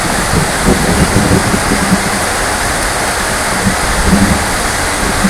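Heavy rain falling steadily, a dense even hiss, with irregular low rumbling underneath.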